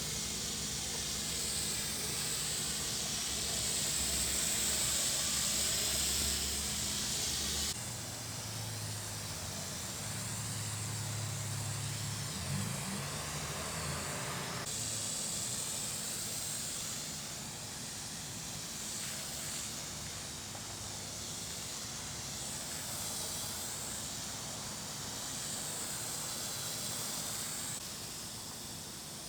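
Garden sprayer hooked to a hose, spraying a lawn herbicide mix in a steady hiss. The hiss changes abruptly about 8 and 15 seconds in.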